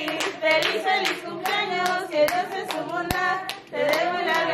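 People singing a birthday song together while clapping along in a steady beat, about two to three claps a second.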